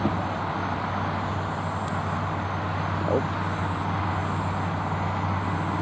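A steady engine drone with a low, even hum that does not change.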